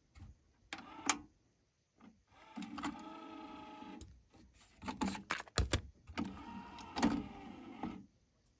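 Technics RS-TR373 cassette deck's right-hand deck mechanism: button clicks, then a mechanical whir as the cassette door opens, a run of clicks and clunks at the cassette door, and a second whir ending in a click as it closes.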